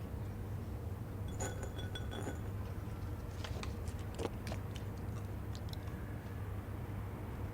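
Light clinks with a brief ringing tone, then a quick run of sharp clicks, as small hard objects are handled, over a steady low hum.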